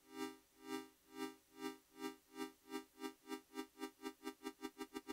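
YM2149F sound-chip synth voice holding one steady note, its volume pulsed by a triangle LFO. The pulses speed up steadily, from about two a second to about five, as the LFO period is turned down.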